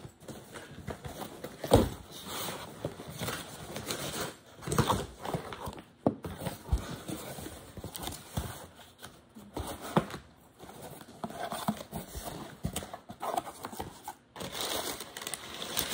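A cardboard shipping box being opened by hand: flaps scraping and folding, and crumpled brown kraft packing paper rustling, with scattered knocks. A sharp knock about two seconds in is the loudest sound.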